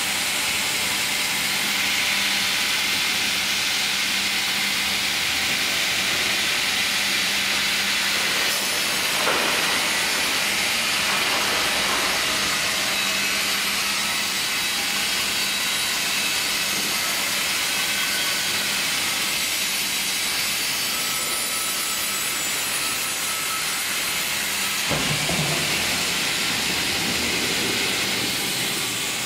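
Sawmill line with a hydraulic vertical band saw and log carriage, the saw cutting a squared log: a steady loud hiss over a machinery hum. About 25 seconds in the hum stops and a lower rumble comes in.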